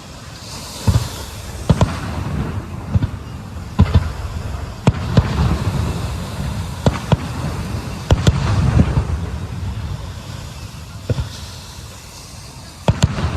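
Aerial fireworks shells bursting: a run of sharp bangs at irregular intervals, some in quick pairs, over a continuous low rumble of echoing explosions.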